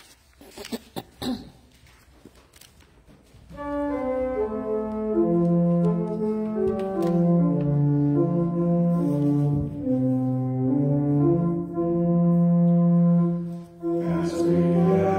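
Pipe organ begins about three and a half seconds in, playing slow, sustained hymn chords that step from one to the next. Near the end, voices join in singing.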